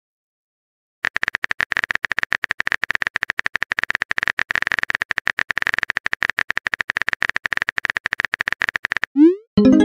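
Phone-keyboard typing sound effect: a fast, continuous run of small clicks lasting about eight seconds as a message is typed, then a short rising whoosh near the end as the message is sent.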